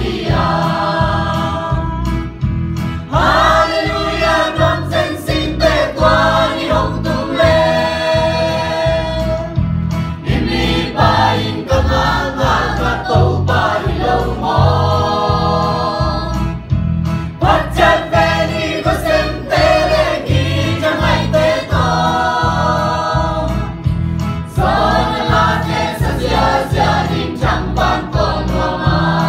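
A small mixed choir of young men and women singing a hymn in Zomi together in long held phrases, with a steady low pulse underneath.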